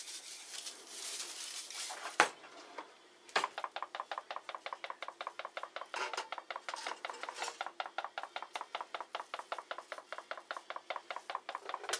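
Salt sprinkled over a raw turkey with a light hiss, a sharp knock as the container is set down, then a small pepper tin shaken rapidly over the bird, about six rattling shakes a second.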